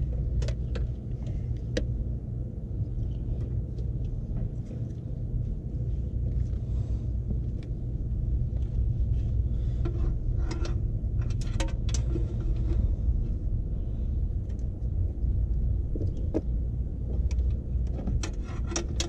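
Small clicks and clinks of hands handling headlight bulb, connector and wiring parts in a car's engine bay, bunched in two clusters about halfway through and near the end, over a steady low rumble.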